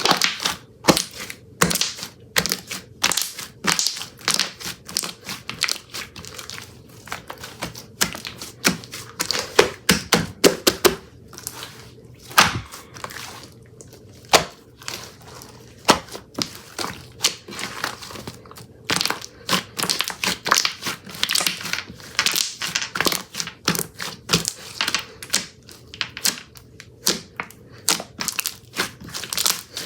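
Homemade slime being squished, stretched and pressed by hand, giving a fast, irregular run of crackling pops and clicks.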